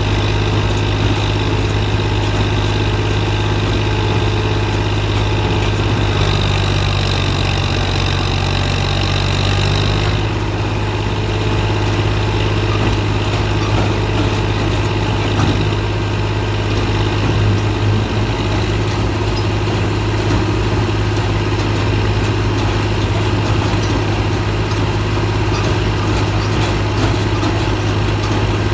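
Straw and husk baling press machine running with a steady, loud low hum. An extra higher whine joins from about six to ten seconds in, then drops away.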